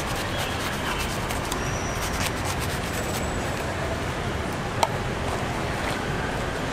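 Steady outdoor market and traffic noise, with light clicks and scrapes as a knife cuts into a halved jackfruit, and one sharp click about five seconds in.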